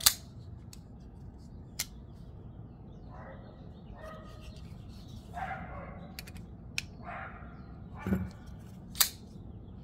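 A Kizer Kobold 2.0 liner-lock folding knife being flipped and closed: a few sharp clicks spaced seconds apart, the loudest at the start and about nine seconds in. A dog barks several times in between.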